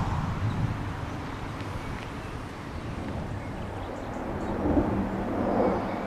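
Wind buffeting the microphone: a low, rumbling noise that rises and falls in gusts. A faint steady hum joins about four seconds in.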